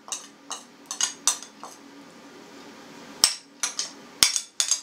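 Metal spoon knocking and scraping against a porcelain plate, moving fried onions off it into a mixing bowl. There is a run of sharp clinks, a pause of about a second and a half, then a few louder knocks near the end.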